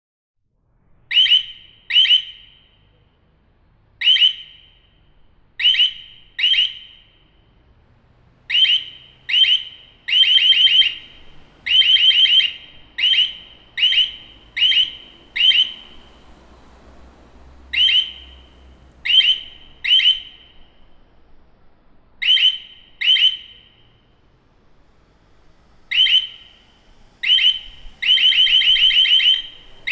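Building alarm sounding in short, loud, high-pitched blasts at irregular intervals, sometimes in quick runs, with a fast unbroken run of rings near the end.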